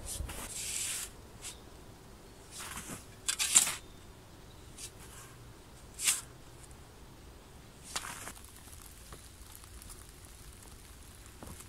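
Shovel digging into loose sandy soil and sand being thrown onto a plastic tarp: a handful of short hissing scrapes and pours, several seconds apart.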